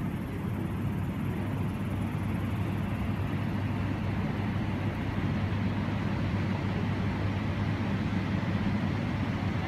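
Steady low rumble with a hiss above it and no sudden events.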